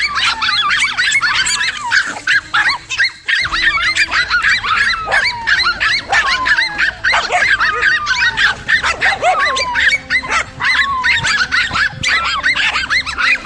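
Several dogs barking and yapping in a rapid, overlapping chorus of short, high calls, barking at a cornered lizard.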